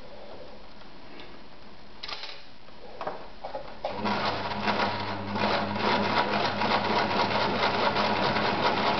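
Victoria Super Deluxe 118F sewing machine starting about four seconds in and running fast, its motor humming steadily under the rapid mechanical chatter of the needle, as it sews a decorative topstitch through folded leather. Before it starts there are a few soft handling knocks.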